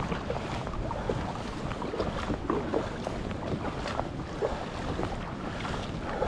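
Sea water lapping and splashing in small irregular slaps, with wind buffeting the microphone.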